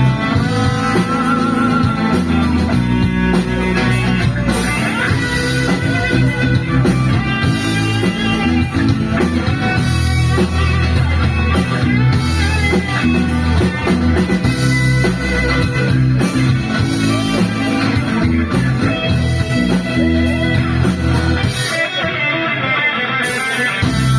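Instrumental break of a rock song: electric guitar over bass and drum kit, with a brief drop-out of bass and drums a few seconds before the end.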